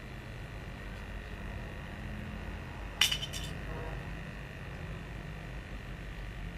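A quick cluster of small, sharp plastic-and-metal clicks about three seconds in, from a USB Bluetooth dongle being handled and fitted to a USB plug. A faint steady hum lies under it.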